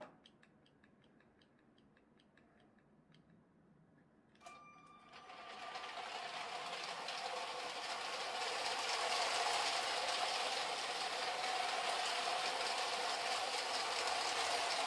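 Near silence with faint ticks at first; about four and a half seconds in, a click with a short tone, then a small electric train motor starts and runs steadily, growing a little louder: the Lego 60337 Express Passenger train's Powered Up motor driving it along plastic track.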